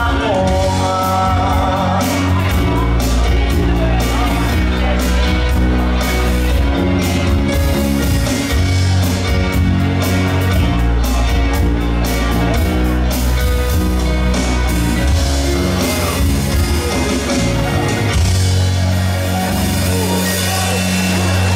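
Live rock band playing a Swedish pop-rock song: electric bass and drums prominent, with guitar and singing. Over the last few seconds the band holds a long, steady low note.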